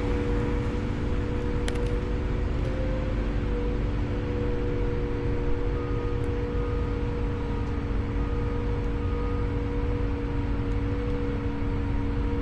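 Machinery running steadily: a constant hum of several steady tones over a low rumble, with five short, faint beeps in the middle.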